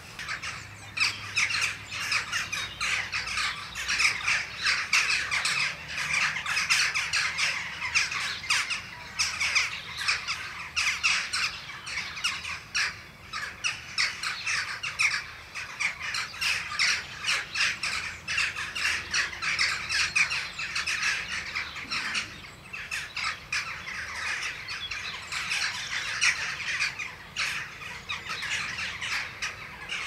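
A flock of jackdaws calling without pause: a dense chatter of short, sharp calls, many birds overlapping several times a second.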